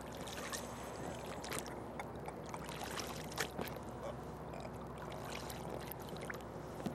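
Water lapping and splashing around a small boat on a pond, under a steady hiss, with scattered light clicks and knocks.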